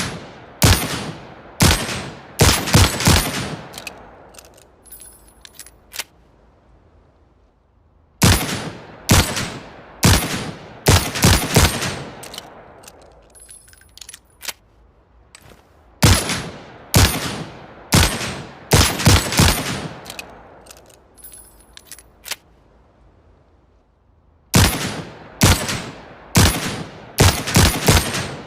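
Manurhin MR-73 revolver firing four quick strings of about six shots each, every shot sharp with a ringing tail. Between the strings come faint metallic clicks.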